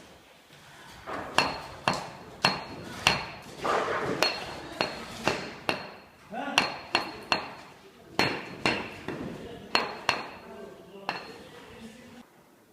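Hammer blows struck in a steady run of roughly two a second, each with a short metallic ring. They start about a second in and stop shortly before the end.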